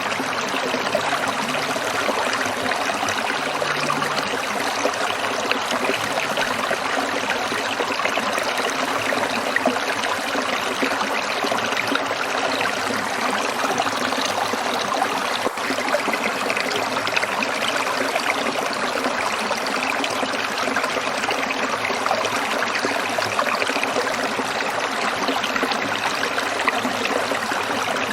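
Stream water trickling and splashing, a steady, even rush with no change in flow.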